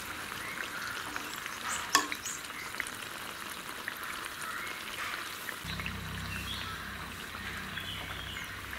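Neyyappam frying in hot oil in a small iron kadai: a steady sizzle of bubbling oil, with a single sharp click about two seconds in.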